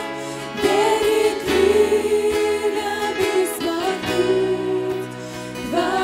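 A mixed church choir and worship band singing a Russian worship song: several voices in held, sung phrases over keyboard and acoustic guitar accompaniment.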